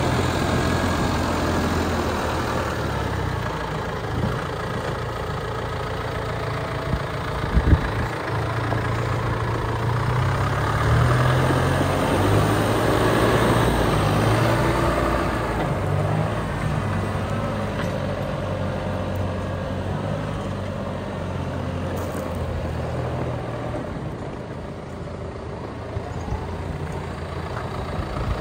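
John Deere 6125R tractor's diesel engine running as the tractor is driven about, its note shifting up and down, with a single sharp knock about a quarter of the way through.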